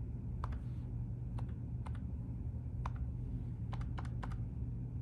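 Dial-pad keys of a Mitel 6930 desk phone clicking as they are pressed, single presses and quick runs of two or three taps, multi-tap entry of letters, over a steady low hum.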